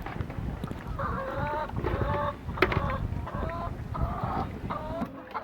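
Laying hens clucking: a run of about six drawn-out calls, each about half a second long, starting about a second in.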